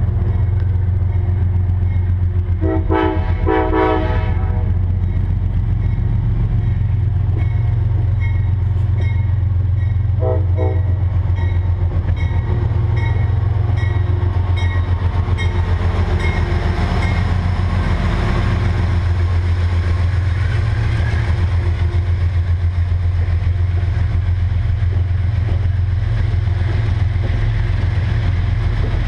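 Amtrak GE P42DC diesel locomotive approaching with its horn blowing a few seconds in and again briefly about ten seconds in, over a steady low rumble. The locomotive passes close about halfway through, then the passenger coaches roll by on the rails.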